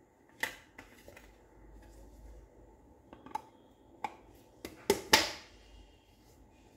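Small stainless steel food containers and their plastic lids being handled and set down, clinking and knocking against each other and the counter: about eight separate clicks and knocks, the loudest about five seconds in with a short metallic ring.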